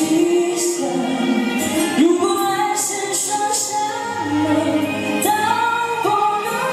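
Pop song sung live into a handheld microphone and amplified through PA loudspeakers, a slow melody with long held and gliding notes.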